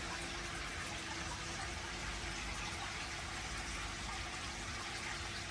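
Water running steadily into a koi pond, an even rushing and splashing with no breaks.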